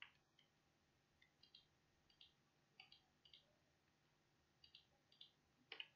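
Faint computer mouse button clicks, about six quick press-and-release pairs spaced irregularly, against near silence.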